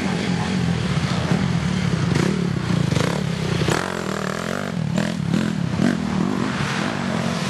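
Dirt bike engine revving up and down as it passes close by, with a few sharp knocks along the way.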